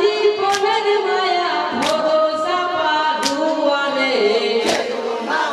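Men's voices singing a Bengali Muharram marsiya together without instruments, with four sharp claps spaced about one and a half seconds apart.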